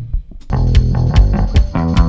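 Background music with guitar and bass: a short break in the first half second, then the band comes back in with a steady beat.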